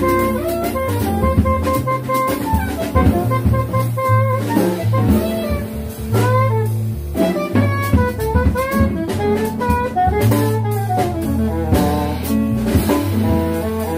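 Live small-group jazz: an alto saxophone plays a melody line over a walking upright bass, piano and a drum kit with cymbals.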